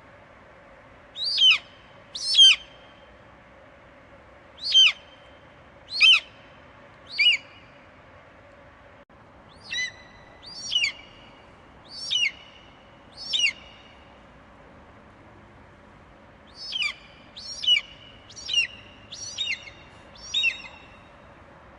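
Eagle screeching: about fifteen short, sharp calls in three bouts, each one falling steeply in pitch.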